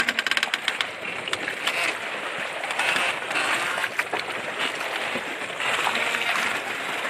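Choppy sea water splashing against a bamboo raft, with a rapid run of clicks in the first second and scattered knocks after.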